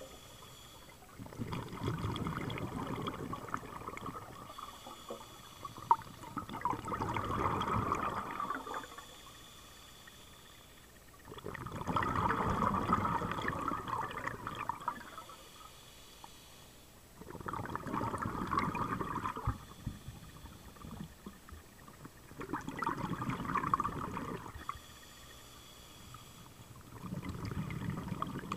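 Scuba diver breathing through a regulator underwater: a bubbling exhalation about every five to six seconds, each lasting two to three seconds, with a short, thin, high hiss of inhalation between them.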